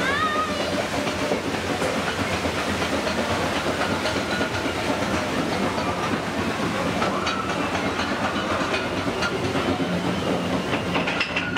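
Steady rattling and rushing noise of a theme-park ride boat travelling along its water channel, with a couple of short rising chirps at the very start.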